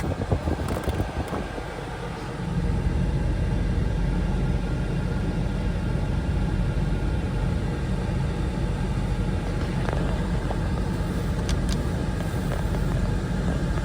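Steady low rumble of a car, heard from inside the cabin, starting about two and a half seconds in after a few quieter knocks.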